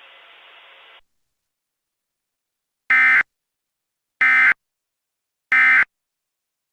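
Three short, identical warbling digital data bursts of an Emergency Alert System SAME end-of-message code, each about a third of a second long and about 1.3 seconds apart. Before them, a faint hiss cuts off about a second in.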